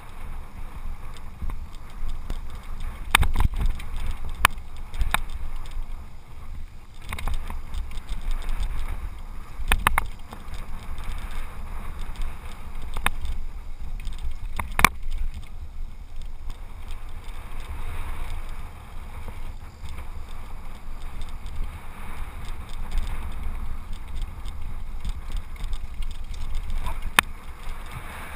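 Mountain bike riding down a grassy dirt trail, heard from a camera on the rider's own bike or helmet: a steady low rumble of wind and tyres on the microphone, with sharp knocks as the bike jolts over bumps, the strongest about three, ten and fifteen seconds in.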